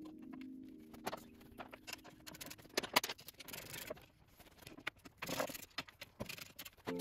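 Rapid, sped-up clicking, tapping and clattering of hand tools and small metal parts being worked off a bare, rusty motorcycle frame. Background music fades out in the first second or two.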